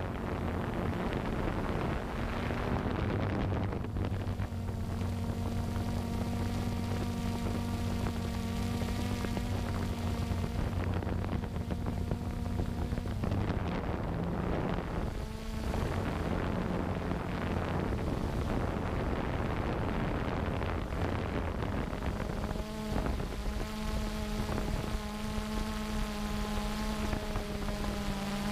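Multirotor drone's motors and propellers whining steadily in flight, heard from the camera on the drone with rushing air over it; the whine steps to a new pitch about halfway through and again about three quarters of the way in.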